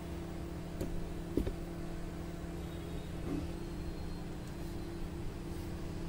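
LG convection microwave oven running its steam-clean cycle, heating a bowl of lemon water: a steady hum, with a couple of soft knocks about one and one and a half seconds in.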